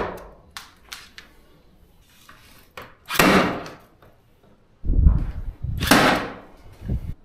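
A Milwaukee M12 cordless cable stapler firing insulated cable staples into timber overhead. Two sharp shots come about three seconds apart, with duller knocks from handling the tool and cable in between.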